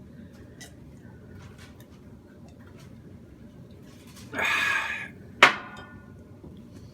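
A man drinking bourbon and ginger ale over ice from a glass: a few faint clicks, then about four seconds in a loud breathy sound lasting half a second, and a sharp clink with a short ring as the glass is set down.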